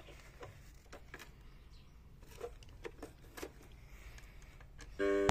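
Several faint clicks and taps as an animated Santa toy is handled and its button pressed. About five seconds in, the toy's electronic tune from its replacement sound board starts abruptly and loudly.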